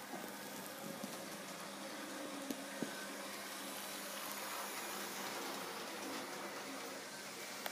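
Small electric model train running along the layout's track: a steady motor whir with a few sharp clicks, growing slowly louder and easing off slightly near the end.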